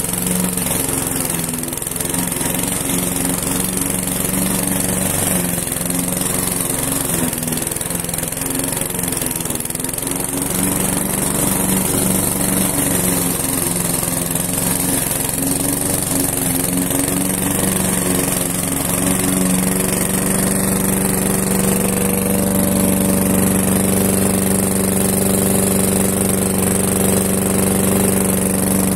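Hyundai HDM 510P lawn mower's 173 cc OHV petrol engine running as it cuts grass, its pitch wavering at first and then settling to a steady, even note about twenty seconds in.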